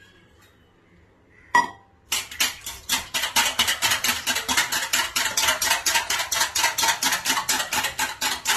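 Wire whisk beating eggs and milk in a stainless steel bowl: a single clink of the whisk on the bowl about a second and a half in, then from about two seconds in, fast, regular strokes clicking against the steel, several a second.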